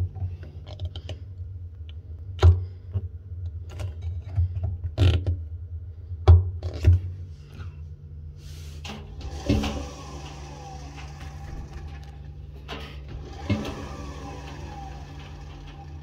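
Steel drum of a front-loading washing machine being turned by hand, with a run of irregular knocks and clunks. Then, twice, the drum is pushed and spins freely on its bearings with a whirring rush that falls slightly in pitch.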